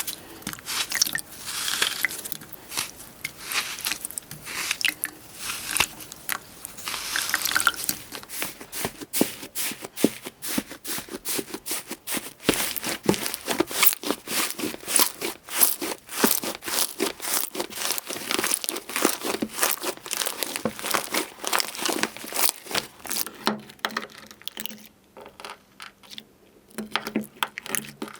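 Crunchy slime being squeezed and pressed, giving rapid, dense crackling and crunching that thins out near the end.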